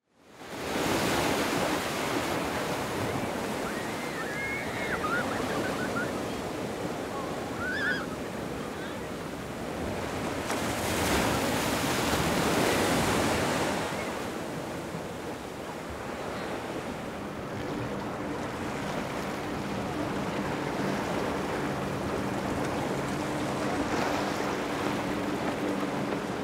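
Surf washing at the inlet with wind on the microphone, and a couple of brief chirps a few seconds in. About two-thirds of the way through, the low steady hum of a boat engine comes in under the surf.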